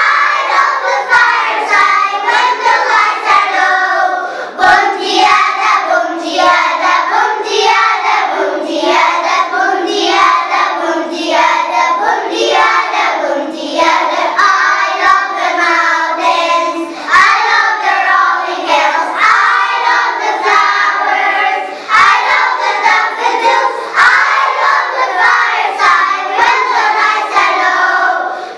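A choir of five- to six-year-old kindergarten children singing a song in English together.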